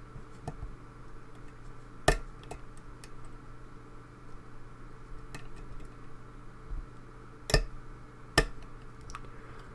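Small metallic clicks and ticks of a hook pick working the pins of a pin-tumbler lock under tension from a tension bar, as pins set and bind. Three sharper clicks stand out, about two seconds in and twice near the end.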